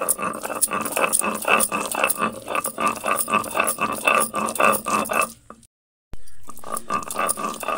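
Stone roller of a sil-batta grinding stone rocked rapidly back and forth over the grooved stone slab, crushing boiled raw mango into a fine paste: a quick, rhythmic stone-on-stone scraping and knocking. The strokes break off for a moment about six seconds in and then start again.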